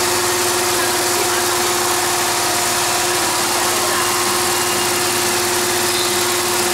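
Machinery running steadily: a constant mid-pitched hum over an even hiss.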